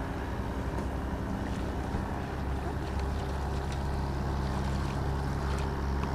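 Boat engine running steadily at low speed, a low hum that grows a little louder about two seconds in.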